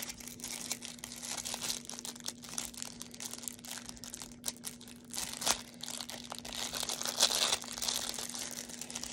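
Plastic packaging crinkling and crackling as a wrapped folding fan is handled and worked open, with louder crackles about five and a half and seven seconds in. A faint steady low hum runs underneath.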